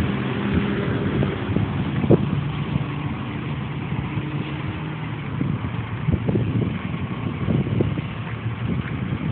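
Vehicle engine running steadily, most likely the 2001 Chevrolet Suburban's, with a few light knocks or clicks over the hum.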